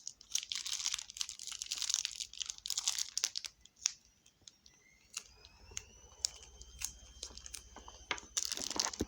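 Plastic piping bag crinkling and rustling as it is squeezed by hand to push slime out, with scattered small clicks. A faint high squeak rises and holds through the middle, then the crinkling resumes near the end.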